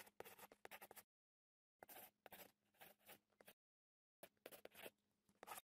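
Faint marker scribbling on a drawing surface, a dry scratchy sound in three stretches of a second or two each, broken by dead-silent gaps.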